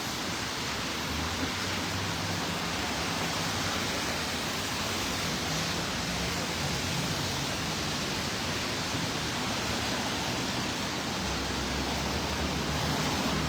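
Steady hiss of light rain on a wet city street, with a low rumble underneath.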